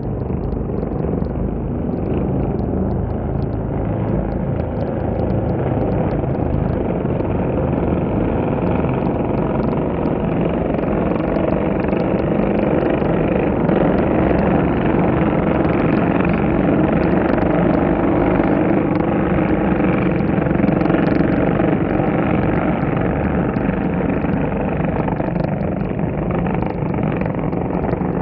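Racing motorcycle engines running at speed as bikes pass on the track, a loud continuous engine sound with no break.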